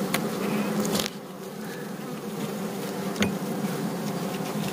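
Honey bees of the Bukovynka line buzzing in a steady hum around an open hive, with a few short clicks.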